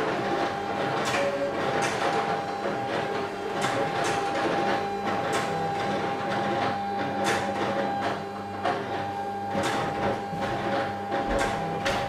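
Desktop cutting machines and a printer running: a steady motor whine with shorter tones that start and stop, and irregular clicks as the mechanisms move.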